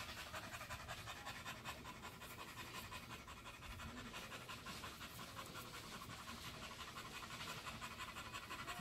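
Olde English Bulldogge panting quickly and evenly, faint.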